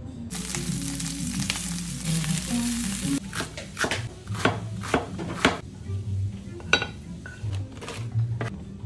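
Background music throughout. For about the first three seconds there is a steady hissing sizzle of frying. Then a chef's knife chops green onions on a cutting board, two to three sharp chops a second, followed by a few scattered knocks near the end.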